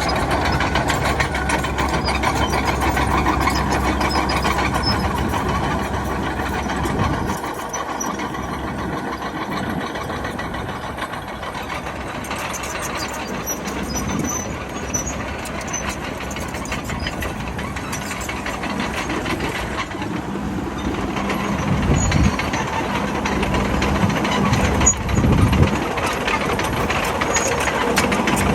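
Bulldozer's diesel engine running as the machine works, easing off about seven seconds in and building up again after about twenty seconds.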